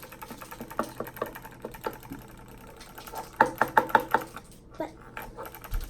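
Small plastic Lollipets toy pet clicking and rattling on a tabletop as it spins after a magnetic wand, with a run of fast, louder clicks about three and a half seconds in.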